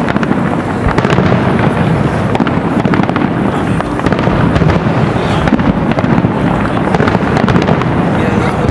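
Aerial fireworks shells bursting in quick succession, a dense, unbroken run of sharp bangs and crackles over low rumble.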